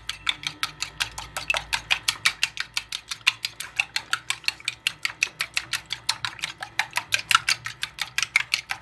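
Eggs being beaten hard in a bowl: a utensil clicking rapidly against the bowl's sides, about seven strokes a second, steady throughout.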